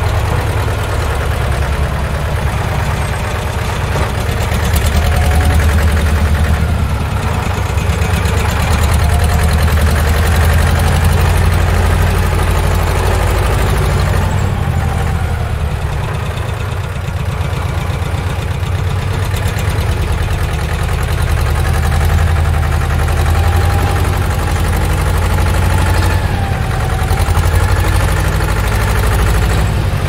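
Heavy construction-machinery engine running steadily at idle, a deep, even rumble with a faint wavering higher whine coming and going.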